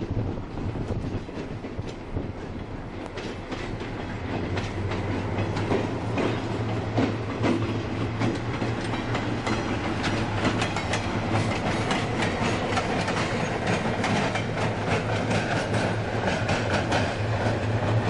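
EMD SW1200 switcher locomotive passing with a caboose: its 12-cylinder 567 diesel engine running with a steady low drone, while the wheels click rapidly over the rail joints. The clicking grows louder and thicker a few seconds in as the train draws close.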